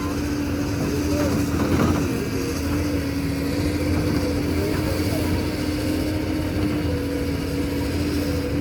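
Diesel engine of heavy construction machinery such as an excavator running steadily, with a constant hum over a low rumble.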